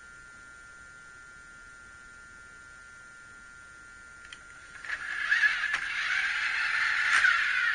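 A faint steady electrical hum, then a click and, about five seconds in, the louder whirring of a Bigtrak toy's electric drive motors as it starts up and backs away.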